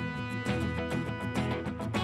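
Background music with plucked guitar, a steady beat of short notes.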